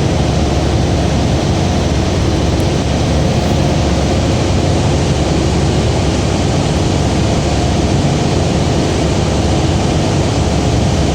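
Hovercraft engines and propeller fans running at a steady drone, heard from inside the passenger cabin, with a low hum under an even rushing noise.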